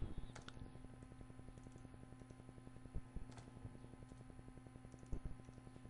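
Faint, scattered keystrokes on a computer keyboard as a terminal command is typed, over a steady low electrical hum.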